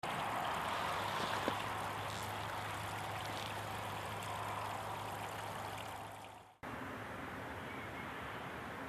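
Water running through a small stone-lined channel, a steady rushing that fades out about six seconds in. After a sudden cut comes a quieter steady hiss of background noise.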